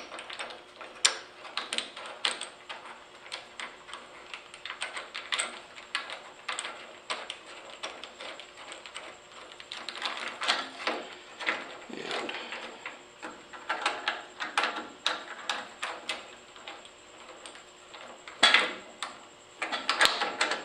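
Small metal parts of a Craftsman jointer's fence clamp clicking and clinking as they are fitted back together, in irregular light taps with a louder clatter near the end.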